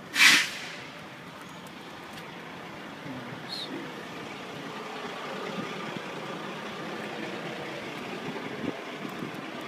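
A sharp, loud hiss of compressed air right at the start, fading within about half a second, typical of a semi truck's air brakes or air system venting. After it, a steady background rumble of truck engines running.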